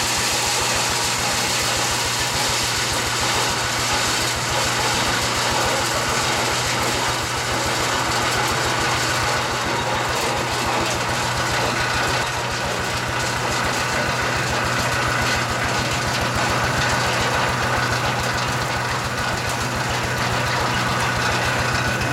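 Small tractor engine running steadily with a rapid low pulse, driving a 5TYM-850 corn husker-sheller whose spinning drum adds an even whirring hiss; no corn is being fed through it.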